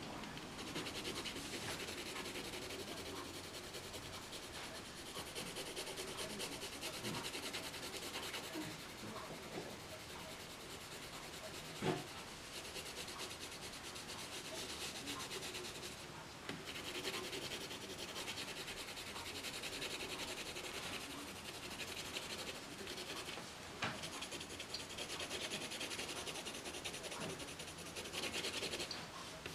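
Coloured pencil scratching back and forth across paper in rapid shading strokes, with a single light knock about halfway through.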